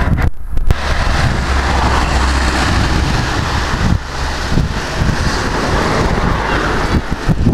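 Wind buffeting the camera's microphone: a loud low rumble under a steady rushing hiss, broken by two short gaps, one near the start and one about halfway through.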